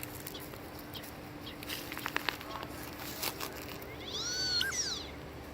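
A duck giving an odd, high, whistle-like call that rises and then falls, lasting about a second near the end, after a few short clicks about two seconds in.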